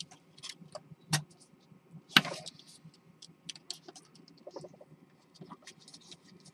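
Irregular small clicks and taps of fingers handling the plastic body of a Hubsan H501s quadcopter and pushing small wire connectors into its circuit board, with a sharper knock about two seconds in.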